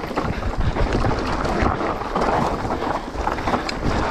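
Mountain bike descending a rough dirt and stone trail at speed: tyres rolling over loose ground with a steady rush and rumble, and the bike clattering over bumps in many short knocks. Wind buffets the helmet-mounted microphone.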